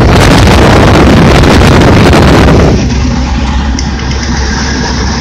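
A loud rush of air buffeting the microphone for about two and a half seconds, over the steady running hum of AAON rooftop air-conditioning units. The rush then drops away suddenly, leaving the units' hum.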